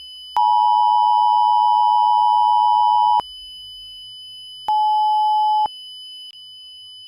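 Emergency Alert System attention signal: a steady two-tone electronic beep held for about three seconds, then after a short gap a single-tone beep of about a second, over a faint steady high whine.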